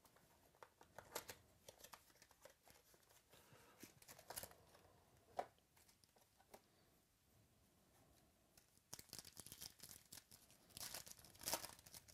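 Trading-card packaging of a 2017 Topps Finest Baseball box being torn and opened: a faint series of short tearing and crinkling rustles, with louder bursts near the end.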